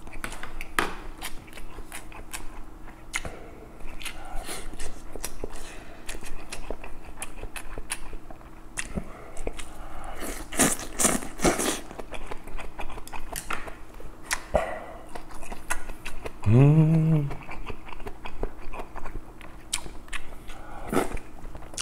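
Close-miked eating of kimchi stew and rice: wet chewing and lip smacks with small utensil clicks throughout, and a loud slurp of a mouthful about halfway through. About three-quarters of the way in comes a short, pleased hum that rises and falls in pitch.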